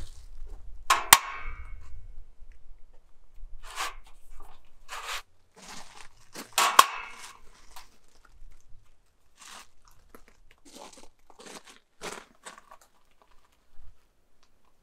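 Scattered crunching and rustling handling noise, with two sharp metallic clicks, one about a second in and a louder one near the middle, as an aluminium spirit level is set and shifted against a steel wall stud.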